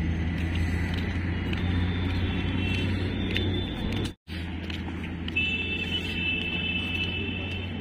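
Steady engine hum of a moving vehicle carrying the camera along the road, with a high steady tone sounding twice. The sound drops out for a moment about four seconds in.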